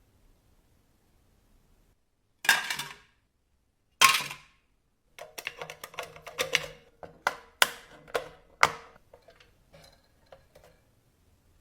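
Vintage mechanical cash register being worked by hand. Two loud clunks of the mechanism, then a quick run of key clacks and clicks with a ringing tone under them, fading to a few light ticks.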